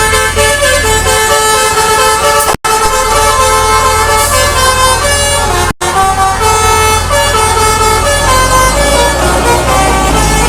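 Basuri V3 telolet bus air horn playing a melody of stepped multi-tone blasts, over a steady low engine rumble. The sound drops out abruptly twice for a split second.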